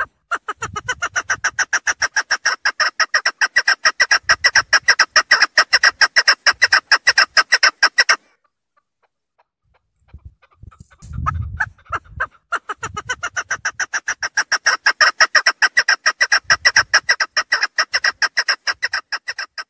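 Female chukar partridge calling a fast, even run of clucking notes, about seven a second, in two long bouts with a pause of about two seconds between them.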